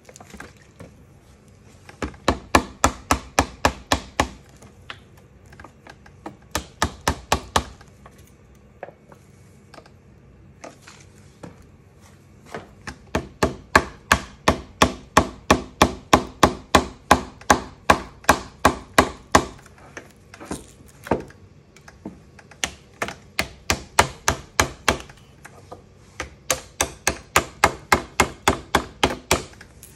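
Rapid runs of sharp metal taps on a glass slab, about five a second, coming in bursts of a few seconds with short pauses between; a metal knife or tool striking the letterpress glass ink slab.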